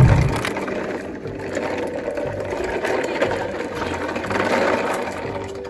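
Plastic wheels of a child's toy wagon rolling over a concrete path, a steady rumble throughout, with a single low thump right at the start.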